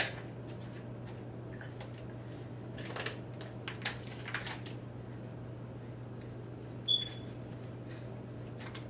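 Quiet room tone with a steady low hum, a few faint clicks and rustles around the middle, and one short high squeak about seven seconds in.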